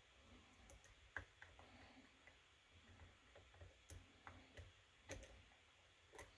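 Faint, irregular clicks and small taps of a lock pick and tension wrench working the pins of a kik cylinder lock during picking, about half a dozen in all.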